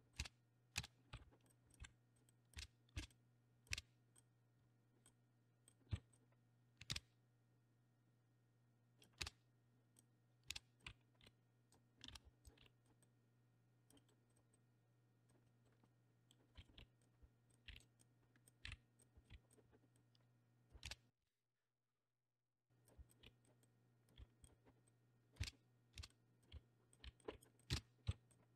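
Computer keyboard keystrokes and mouse clicks, scattered singly and in short runs, over a faint steady low hum.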